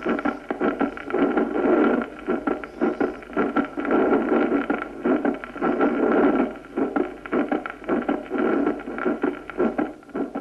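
Recorded heart sounds heard through a stethoscope, beating in a repeating rhythm with a pulmonary systolic ejection murmur. The murmur is a functional flow murmur from an atrial septal defect. A steady recording hiss runs underneath.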